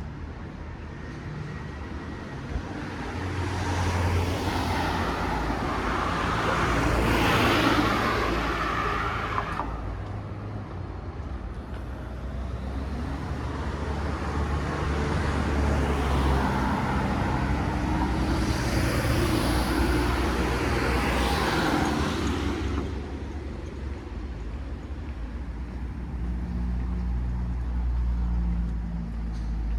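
Street traffic: two cars pass one after the other, their tyre and engine noise swelling and fading, over a low engine hum.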